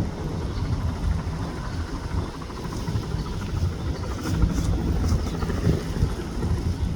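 Bell 206 helicopter's turboshaft engine and two-bladed main rotor running, a steady low throb.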